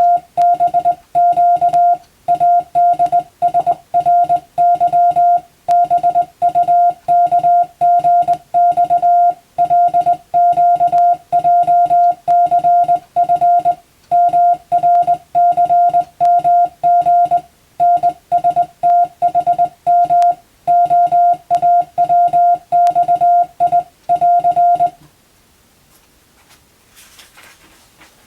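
Morse code sent as a steady mid-pitched beep keyed on and off in quick dots and dashes, grouped into characters with short gaps, until it stops about 25 seconds in.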